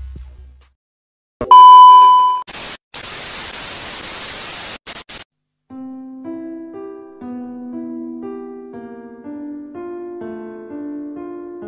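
A loud, steady electronic beep lasting about a second, followed by a couple of seconds of static hiss that cuts off in stutters. Then background music begins: a simple keyboard melody of held notes stepping up and down.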